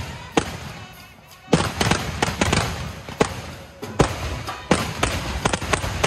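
Fireworks going off in a rapid, irregular string of loud bangs, with a short lull about a second in before the bangs pick up again thick and fast.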